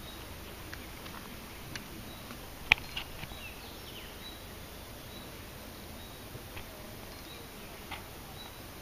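Quiet riverbank ambience: a faint steady hiss with a short, high chirp from a small animal repeating every second or so, a few brief bird calls, and a single sharp click about three seconds in.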